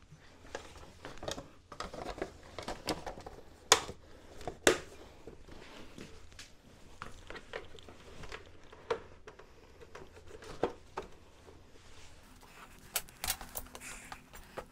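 Hard plastic scooter front cowl and headlight housing being handled and pressed into place: scattered clicks, knocks and plastic rustling, with two sharper knocks about four and five seconds in.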